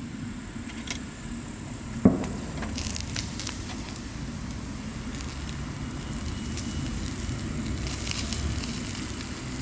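Ribs sizzling on the grate of a small charcoal-briquette grill, with scattered crackles over a steady low hiss and one sharp click about two seconds in.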